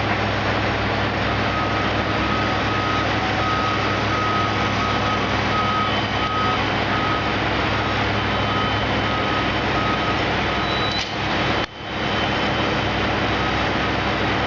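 Truck engine running while the truck reverses, its backup alarm beeping in an even rhythm of about one and a half beeps a second, starting about a second in.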